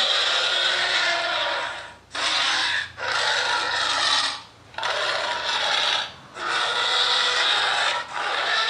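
Tyrannosaurus rex sound effect: a series of harsh, raspy roars, each one to two seconds long, with brief breaks between them.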